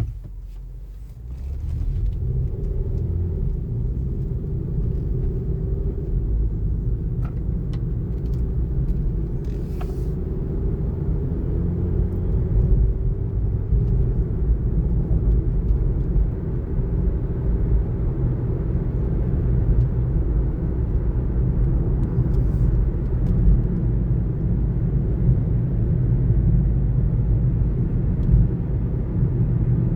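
2019 Kia Niro driving, a steady low road rumble building about a second and a half in, with a faint wavering hum over it for roughly the first half.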